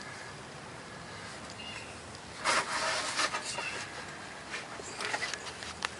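Rubbing and scraping handling noises, with a louder burst about two and a half seconds in and a few sharp clicks near the end, over faint high chirps.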